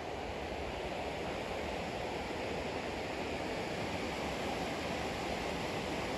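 Rushing creek water, heard as a steady, even hiss with no breaks.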